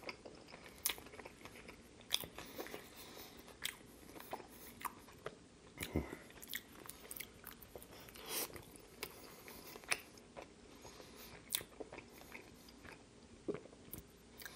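Close-miked chewing of a barbecue chicken sub: moist chewing with irregular crunches from the lettuce and crispy onions, and a fresh bite into the roll about eight seconds in.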